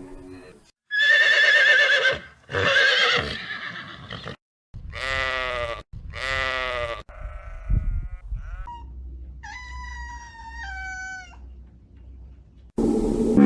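Goats bleating, a run of separate wavering calls: two short ones, then two longer ones, with sharp gaps between them. Higher calls that drop in pitch in steps follow near the end.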